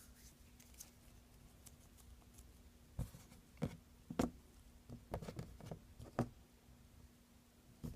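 Soft, irregular taps and knocks of a plastic Play-Doh stamper and modeling dough being handled and pressed on a tabletop, a handful of light strikes in the second half with a quick cluster about five seconds in.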